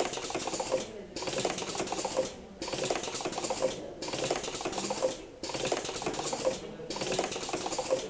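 Rapid clicking, like keys being typed, in stretches of about a second broken by short pauses, the pattern repeating evenly about every second and a half.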